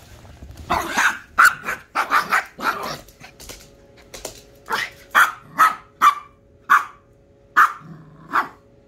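Small Pomchi (Pomeranian–Chihuahua mix) dog barking in play: a quick run of barks in the first few seconds, then single sharp, high barks every half second to a second.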